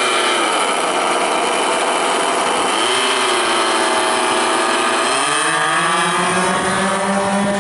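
Four O.S. 65AX two-stroke glow engines on a large radio-control C-5 model running together. Their pitch dips and lifts as the plane taxis, then rises about five seconds in as the throttle opens for the takeoff roll and holds there.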